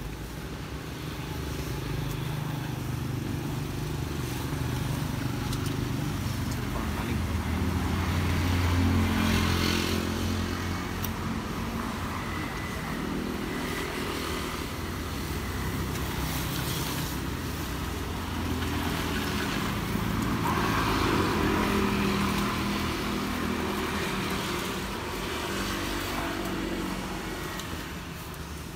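Road traffic passing on the street: motor vehicle engines hum, rising to a peak twice, about a third of the way in and again past two-thirds, then fading.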